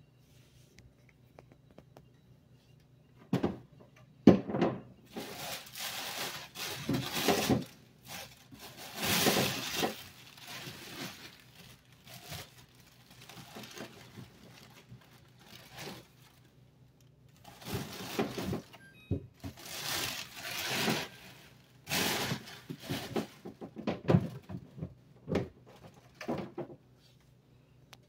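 Close handling noise: irregular rustling and scraping in spells, with a couple of sharp knocks about three to four seconds in.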